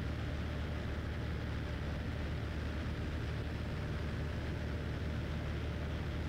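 Cessna 172's piston engine and propeller droning steadily inside the cabin in level flight, at a constant power setting.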